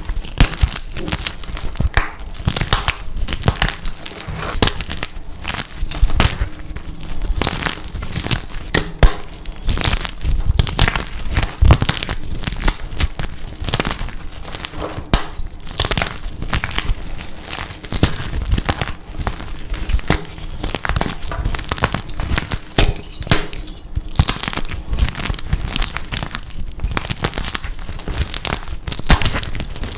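Blocks of dyed gym chalk being crushed, a dense, continuous run of crunching crackles.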